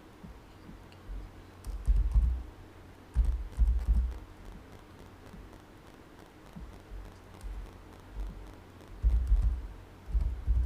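Computer keyboard being typed on in short bursts of keystrokes with pauses between, heavy low thuds with light clicks, as a product key is entered.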